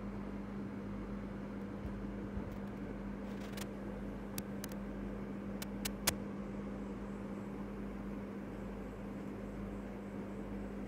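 Steady low hum over background hiss, with a handful of small clicks between about three and six seconds in, the last the loudest.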